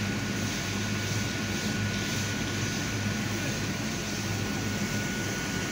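High-pressure water jet hissing steadily from a hose nozzle onto wet paving, over the constant drone of the drain-jetting machine's engine and pump.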